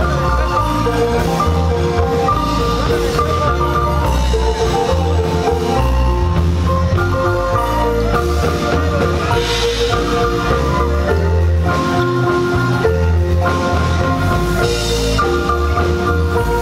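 Live marimba band music: marimba melody lines over a strong, steady bass beat, played loud and without a break through large PA speakers in a reverberant hall.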